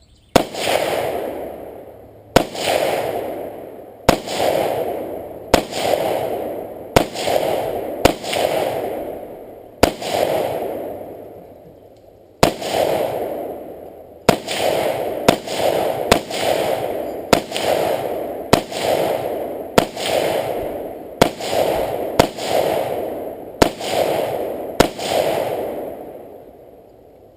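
AR-15 rifle in 5.56/.223 firing single shots at an uneven pace, about twenty in all, one to two and a half seconds apart. Each shot is followed by a long rolling echo. The rifle keeps cycling shot after shot, now running fine after a fix for its gas block slipping forward.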